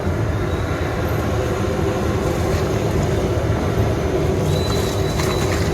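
Steady low rumbling noise, with a few faint clicks and a brief high tone near the end.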